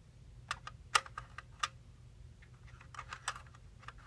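Small sewing-machine spools and accessories being handled, giving two clusters of light clicks and taps, the first about half a second in and the second around three seconds in.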